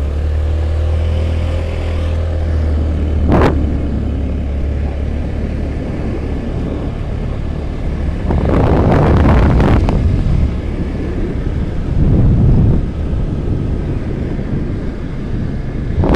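Motorcycle engine running as the bike rides up a rough hill track, with a single sharp knock about three seconds in and louder rushes of noise around the middle.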